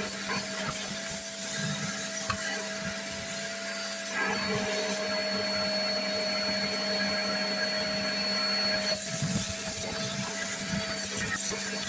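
Vax spot washer's suction motor running steadily with a droning hum. For about five seconds in the middle its hiss changes and a thin high whistle joins in, the motor tone dipping slightly, then it returns to the plain hum.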